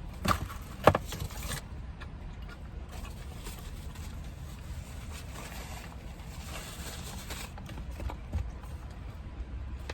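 Close-miked mouth sounds of someone eating a pizza slice: chewing and lip smacks. Two sharp clicks come within the first second, the second one the loudest, and a smaller click follows near the end.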